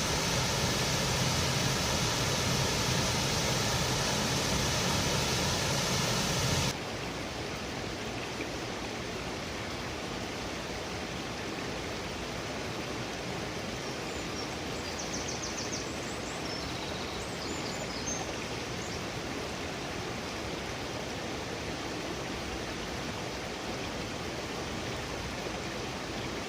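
Waterfall's falling water rushing as a steady noise, which drops abruptly to a quieter, even rush about seven seconds in. Faint high-pitched chirps come near the middle.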